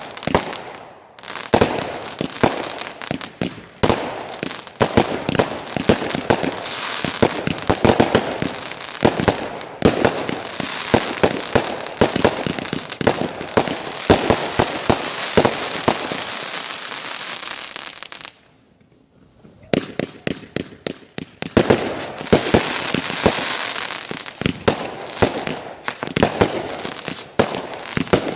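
Fireworks going off in quick succession: dense bangs and crackling, with a brief pause about two-thirds of the way through before the bangs start again.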